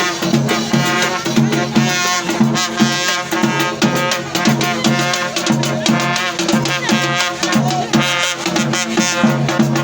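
Music with drums and brass and a steady beat.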